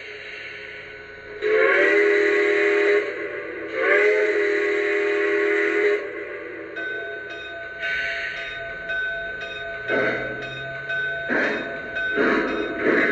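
Lionel Legacy RailSounds steam-locomotive sounds from the Polar Express model: a faint hiss of steam, then two loud blasts of a chime steam whistle. A bell then rings while exhaust chuffs begin and come faster as the engine starts away.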